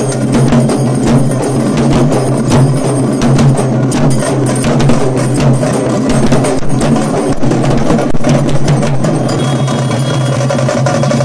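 Fast, unbroken folk drumming on stick-beaten dappu frame drums together with a double-headed barrel drum, playing a driving dance rhythm.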